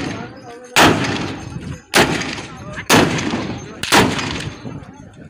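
Long-barrelled guns fired one after another: four shots about a second apart, each a sharp crack that trails off.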